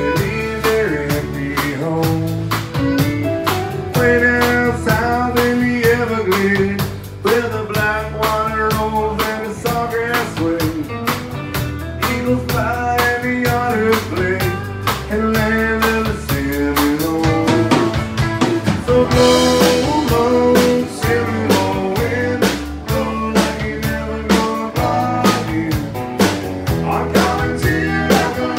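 Live country band playing: strummed acoustic guitar and fiddle over a drum kit keeping a steady beat, with a cymbal crash about two-thirds of the way through.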